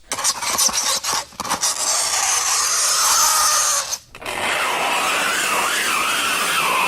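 Fingernails scraping across a chalkboard: a few short scratches, then long scrapes with a shrill, wavering tone, with a brief break about four seconds in.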